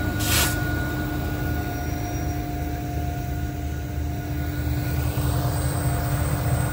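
Diesel-electric freight locomotives passing under heavy load on a climbing grade: a deep, pulsing engine rumble with a steady turbocharger whine. Loaded covered hopper cars roll by behind them. A short hiss comes about a third of a second in.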